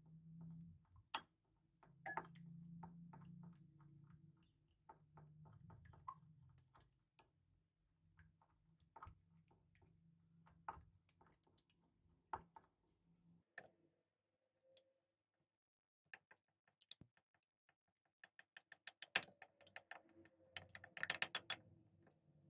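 Wooden spoon stirring a runny slime mixture in a bowl: faint wet clicks and taps, with a quicker run of clicks near the end.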